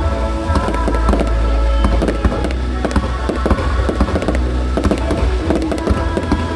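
Fireworks display banging and crackling continuously over loud music with a heavy bass.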